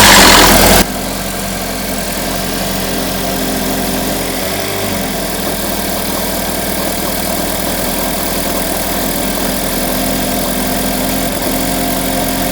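2012 GMC Terrain's 2.4-litre four-cylinder engine on a cold start: it runs loud for the first second, then settles into a steady idle with a rattle from the front cover, most likely a stretched timing chain (P0016/P0017 cam-crank correlation codes).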